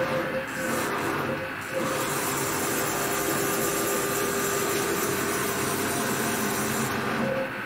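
Gantry CNC router's axis motors moving the head under manual jog: a short move, a brief pause, then a longer steady run of about five seconds, a whirring hiss with a steady hum, stopping shortly before the end.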